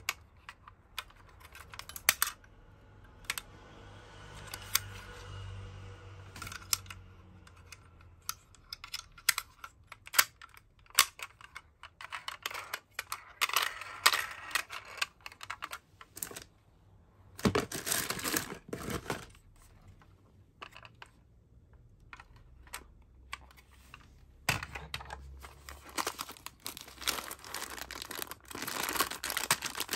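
Small clicks and light knocks of toy ambulances being handled and turned over in the hands. Near the end a clear plastic bag around a small die-cast toy car crinkles.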